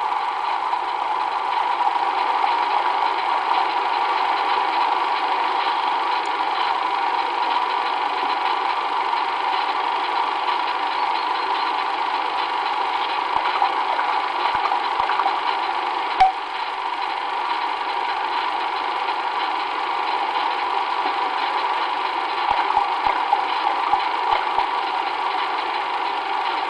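Steady mechanical hum and hiss from the recording and playback machine, with no clear raven call standing out. A few faint clicks and one sharp tick break it about sixteen seconds in and again near the end.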